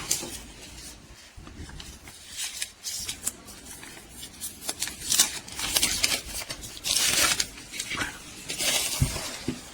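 Adhesive protective plastic film being peeled off a new device and the packaging handled: a string of crinkling, tearing rustles of varying length, the longest about seven seconds in.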